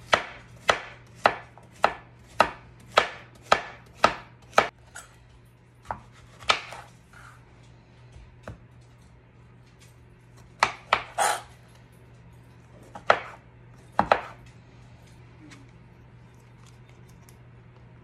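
Kitchen knife slicing a cucumber, each cut ending in a sharp knock of the blade on the countertop, about two cuts a second in a steady run. Then slower, scattered cuts through a tomato, a few in quick succession, before the cutting stops.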